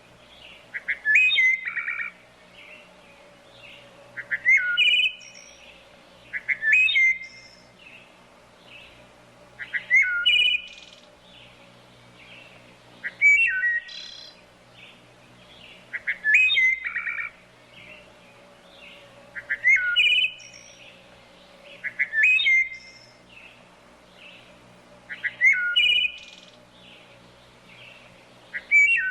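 A songbird singing a short phrase of quick chirps and hooked whistles, repeated about every three seconds.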